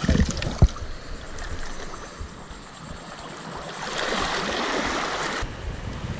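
Wind and water noise on an open microphone by the shore, with a few sharp knocks in the first second. About four seconds in a louder hiss sets in and cuts off suddenly near the end.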